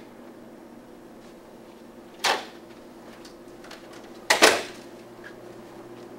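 A door opening with a sharp clack about two seconds in, then swinging shut with a louder double knock about two seconds later, over a steady low hum in the room.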